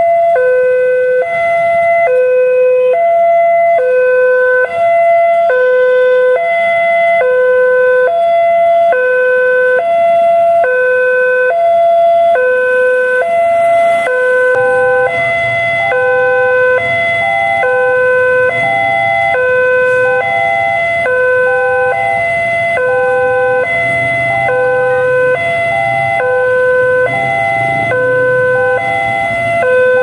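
Electronic warning siren of a railway level crossing, sounding while the barriers are down to warn that a train is coming: two tones alternate steadily, about one cycle a second. About halfway through a third, higher tone joins the pattern and a low rumble comes in underneath.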